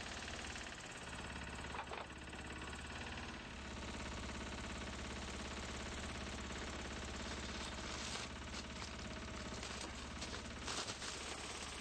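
A heavy machine's engine running steadily, with a few sharp knocks about two seconds in, near eight seconds and near the end.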